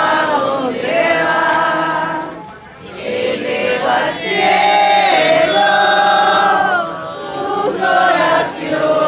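A group of voices singing a hymn together in long, drawn-out phrases, with a brief pause between phrases about two and a half seconds in.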